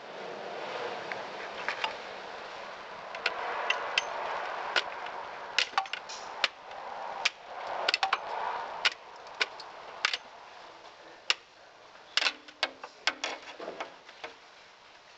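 Irregular sharp metallic clicks and taps from a pry bar working the shift cable's retaining tangs and the cable end being worked out of its bracket. They come over a steady background hiss that fades about halfway through.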